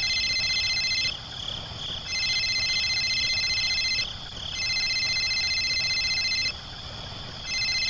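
Insects chirping: a steady high-pitched chorus, with a higher trill that starts and stops in bouts of about two seconds, four times over.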